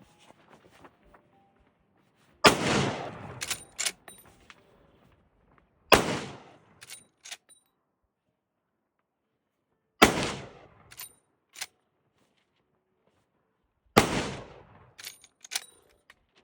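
Four shots from a Henry Model X .45-70 lever-action rifle, roughly four seconds apart, each a loud crack with a short echo. After each shot come two or three sharp metallic clicks as the lever is worked to chamber the next round.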